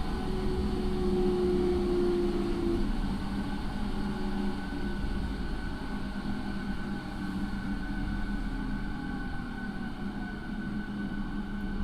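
Interior running noise of a JR 209 series electric train's motor car, fitted with a Mitsubishi IGBT VVVF inverter and MT68 traction motors. A steady rumble carries electrical whine tones from the inverter and motors: a low hum throughout, a mid tone that fades out about three seconds in, and a higher whine that comes in about a third of the way through.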